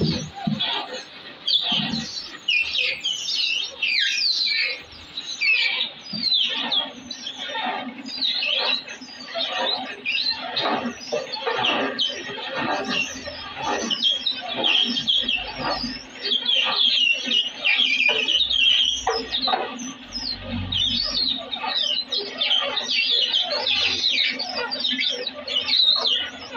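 Coconut oil expeller running with a steady hum, its hopper stirrer turning through ground copra, with busy high-pitched chirping over it.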